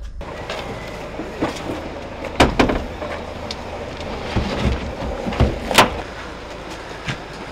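Steady outdoor background noise with scattered knocks and thuds of heavy items being handled, the two loudest about two and a half and almost six seconds in.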